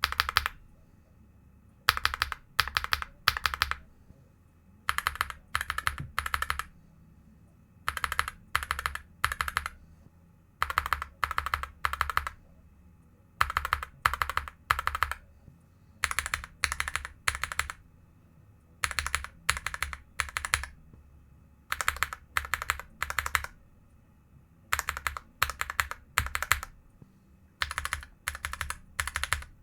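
Linear mechanical keyboard switches being pressed in a sound test: sharp clacks in clusters of three, about half a second apart, with a cluster roughly every three seconds.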